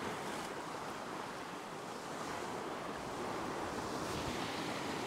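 Ocean surf washing against coastal rocks, a steady rush of white water.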